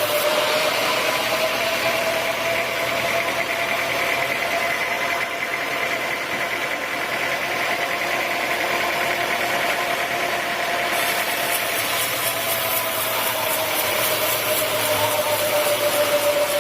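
Sawmill saw machinery running steadily, with a humming tone that rises slightly in pitch and sinks back toward the end.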